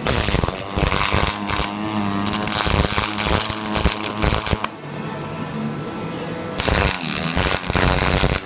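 Electric arc welding on a steel car frame: a crackling, sizzling arc in two runs, about four and a half seconds and then about two seconds, with a lower hum in the pause between them.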